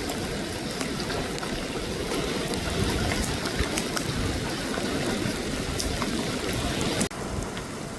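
Steady wash of sea waves on a beach, with a low rumble underneath and scattered small clicks. The sound cuts off abruptly about seven seconds in, giving way to a slightly quieter, similar noise.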